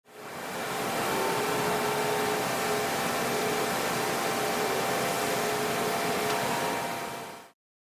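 Steady mechanical hiss with a faint hum from a tyre-changing machine holding a truck wheel. It fades in at the start and cuts off shortly before the end.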